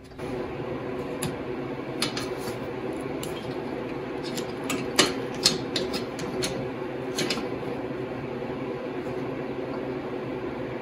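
Bicycle chain running over a large rear sprocket as the rear wheel is spun by a motor, a steady mechanical hum with a few sharp clicks from the chain and sprocket.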